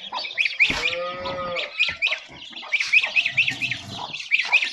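A cow moos once, a drawn-out call of a little over a second about a second in. Baby poultry keep up a constant high peeping underneath.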